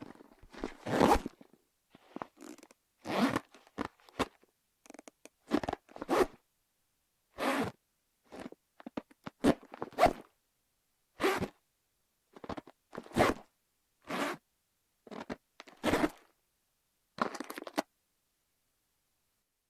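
Pleather handbag with a metal chain strap being handled: about fifteen separate short rustles, scrapes and knocks as it is flipped, slid and set down on hardwood, each under a second long with silence between them.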